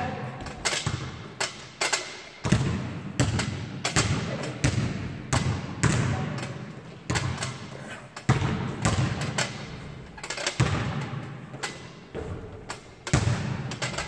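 Basketball being dribbled on a gym floor: a steady run of bounces, about one and a half a second, each echoing in the hall.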